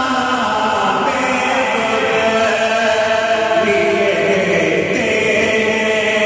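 A man singing a naat (Islamic devotional song) solo into a handheld microphone, in long held notes that slide between pitches.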